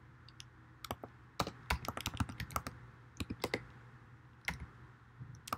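Computer keyboard being typed on: an irregular run of key clicks starting about a second in, a pause, then a couple more keystrokes near the end.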